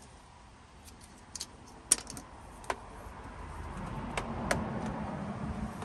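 Scattered light clicks and taps of a plastic mains plug and power cable being handled and unwound from an air fryer. A low hum builds in the second half.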